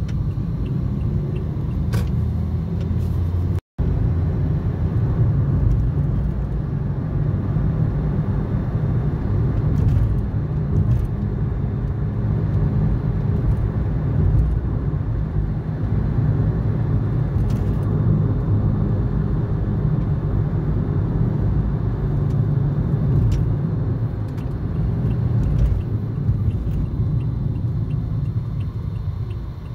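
Steady road and engine rumble of a moving car, heard from inside the cabin. There is a brief cut to silence about four seconds in.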